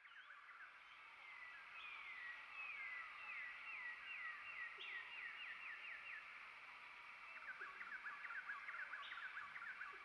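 Faint forest animal calls: a run of short down-slurred whistled notes, about two a second, then a quick chatter of short notes near the end, over a steady high hum.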